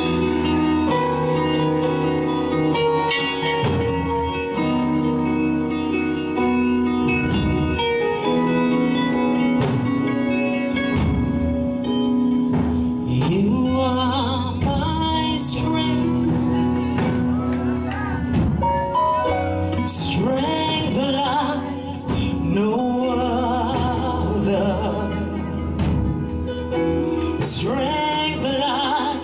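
Live gospel band playing sustained keyboard chords over bass. About twelve seconds in, a woman's solo voice comes in over the band, singing a slow, wavering melody.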